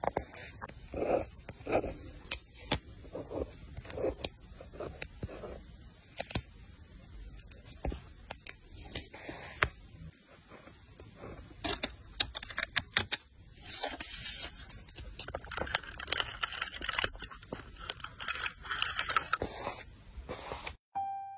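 Close-up paper-crafting sounds of journal layout: paper and stickers handled on a desk, with taps, clicks, scraping and rustling. A run of short rubbing strokes comes in the first few seconds, and the rustling grows denser in the last third.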